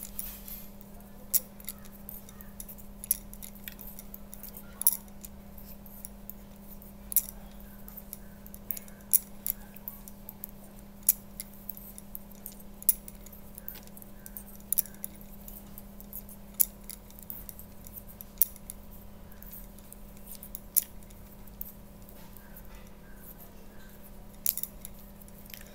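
Metal knitting needles clicking against each other as stitches are worked: sharp, irregular clicks, roughly one every second, over a steady low hum.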